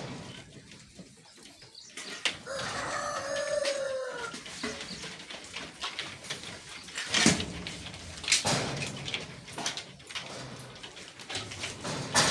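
A rooster crows once, a single drawn-out call of about two seconds, followed later by several sharp knocks.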